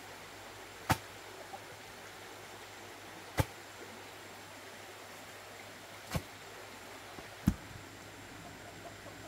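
Four sharp thuds as a bamboo pole is rammed down into the ground to set a fence post, spaced a few seconds apart, over the steady rush of a stream.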